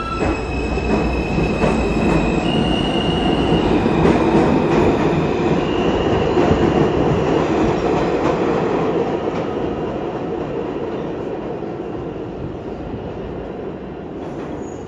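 R160 New York City subway train pulling out of the station. Its propulsion motors whine in steady tones that step upward in pitch as it accelerates, over the rumble of steel wheels on the rails. The sound is loudest a few seconds in and fades as the train moves away.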